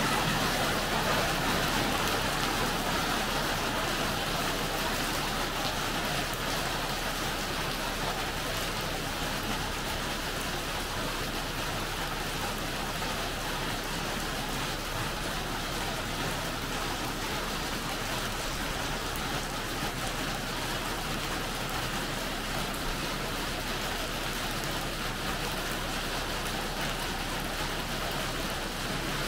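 Steady rain falling, an even hiss without let-up.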